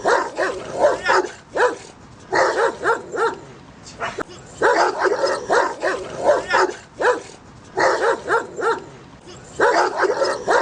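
Angry dogs barking aggressively at each other, in bouts of several quick, sharp barks repeating about every two seconds with brief pauses between.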